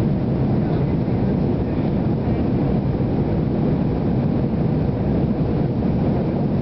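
Steady low cabin noise of an Airbus A318 airliner climbing after takeoff: engine and airflow rumble heard from a seat over the wing, even throughout.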